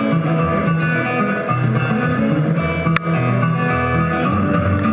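Steel-string acoustic guitar fingerpicked in a busy, steady instrumental run, picked up by a stage microphone. A sharp click cuts across the notes about three seconds in.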